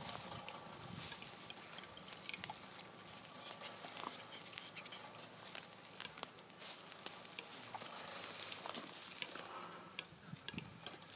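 Capercaillie cock displaying: a string of dry, irregular clicks, with one sharper, louder click about six seconds in.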